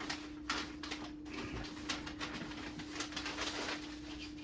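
Paper mounting template rustling and crinkling in irregular bursts as it is handled and taped up, over a steady low hum.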